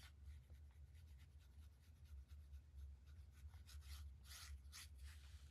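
Faint scratchy strokes of a paintbrush on watercolour paper, several in quick succession about four seconds in, over a low steady hum.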